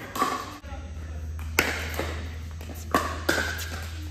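Pickleball paddles striking a plastic pickleball during a rally: three sharp pops with a short ping, one about a second and a half in and two close together near the end.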